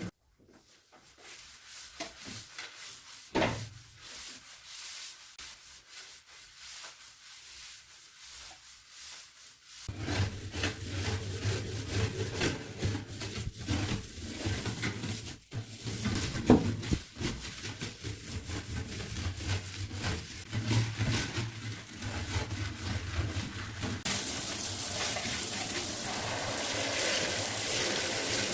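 Bathroom surfaces being scrubbed and rubbed by hand during cleaning, an irregular friction sound with scattered knocks that gets louder about a third of the way in. A steady hiss comes in near the end.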